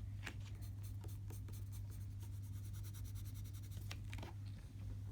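Colored pencil scratching on paper in many short, quick strokes, over a steady low hum.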